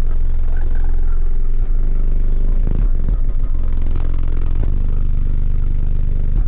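Loud, deep bass from a car audio system of six Sundown ZV5 18-inch subwoofers playing a rap track, with the car body clattering and rattling along.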